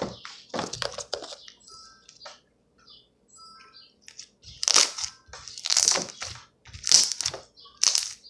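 Slime being squeezed and pressed by hand, with small crackles and clicks, then four louder wet crackling squishes about a second apart in the second half.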